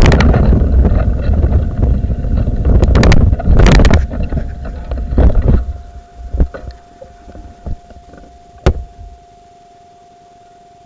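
Loud low rumbling and buffeting on a small camera's microphone with scattered knocks, dying away about five to six seconds in. After that only a steady hiss with a faint electronic hum remains, broken by one sharp click near the end.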